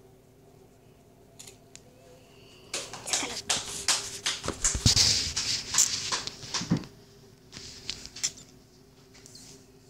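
A few seconds of close clicks, knocks and rustles, loudest around the middle, from a phone camera being picked up and handled against the microphone, over a faint steady hum.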